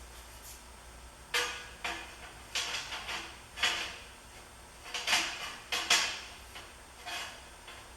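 Heavy steel rings made of half-inch square bar clanking and knocking against each other, about a dozen irregular metallic knocks with a brief ring, as a ring is worked into position against the others' notches.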